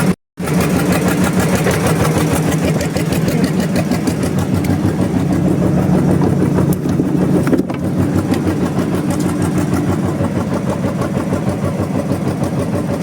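Fishing boat's engine running steadily with a rapid, even chugging, broken by a brief moment of silence just after the start.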